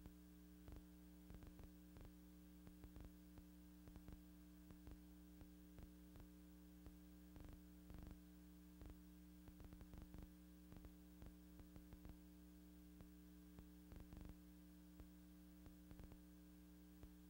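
Near silence: a steady low electrical hum with faint, scattered clicks.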